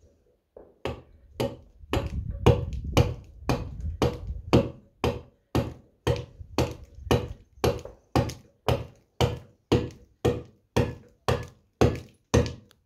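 Round-headed mallet striking a letter-cutting chisel into stone in steady blows, about two a second, starting about a second in. Each blow is a short knock with a slight ring.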